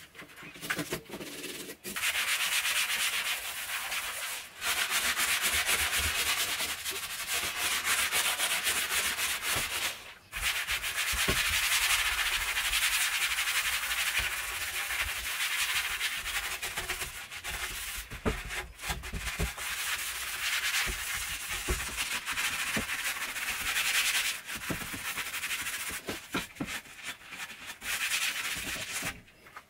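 Sponge scrubbing kitchen cabinet doors by hand: fast back-and-forth rubbing strokes with a few short pauses.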